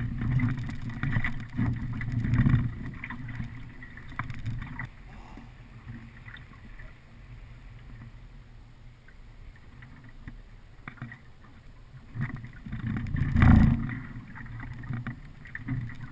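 Choppy lake water lapping and slapping against an aluminium fishing boat's hull, with wind on the microphone. The rumble is louder for the first few seconds, then settles, and there is one loud thump about thirteen seconds in.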